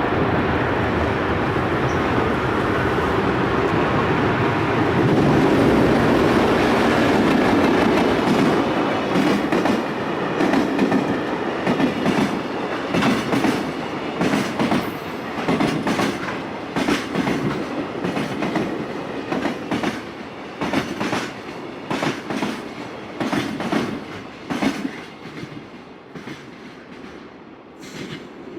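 Freight train passing on the rails: a loud steady rumble at first, then the wagons' wheels clacking over the rail joints in regular beats that fade as the train goes by.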